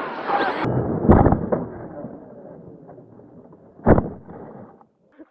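An RC model plane crashing on takeoff: fading scraping noise with two sharp thumps, about a second in and near four seconds in.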